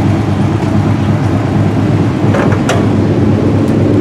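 A car engine idling steadily, with two short knocks about two and a half seconds in.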